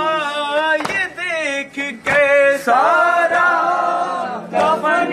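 Male voices chanting a noha (Shia lament) in unison, the melody wavering and held on long notes. A few sharp slaps of chest-beating (matam) break in about once every second or so.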